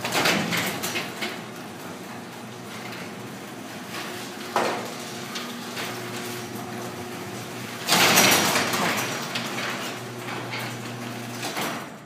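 Electric garage door opener running with a steady hum as the sectional door travels and closes, the panels rattling. A knock about four and a half seconds in and a loud bang and rattle about eight seconds in come from the door popping at its sagging center section. The motor stops just before the end.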